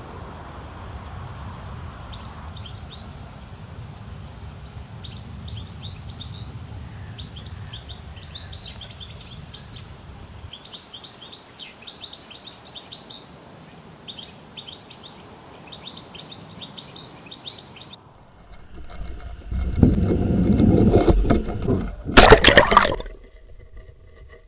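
A songbird singing the same short phrase over and over, about one phrase every one to two seconds, over a low steady rumble. Near the end the birdsong breaks off and loud, muffled sloshing and rumbling of water takes over, with one sharp loud knock.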